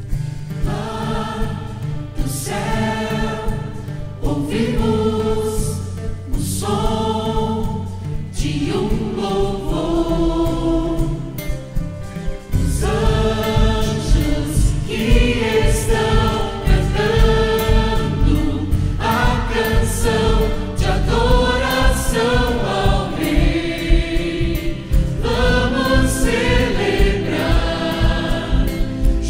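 Mixed choir singing a Portuguese-language Christmas worship song in phrases, with orchestral accompaniment holding sustained chords. About twelve seconds in, the accompaniment fills out with a fuller, rhythmic low end and the choir sings louder.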